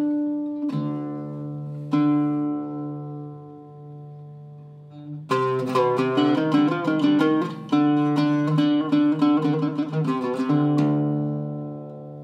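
Iraqi-style Zaryab oud with a cedar top and Aquila red strings in do-do tuning, played with a plectrum: a few single notes left to ring and die away, then about five seconds of fast picked phrases, ending on one held note.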